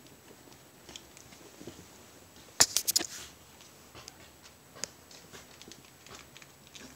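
Two puppies play-wrestling, with small scuffles and the patter of paws and mouthing, and a brief cluster of loud sharp clicks about two and a half seconds in.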